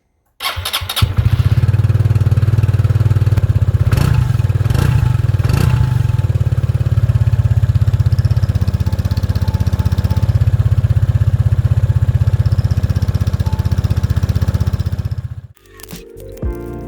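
180cc scooter engine fitted with a turbo-whistle exhaust tip, starting up and running steadily, with three short throttle blips about four to six seconds in, then shutting off near the end. Music begins right after it cuts out.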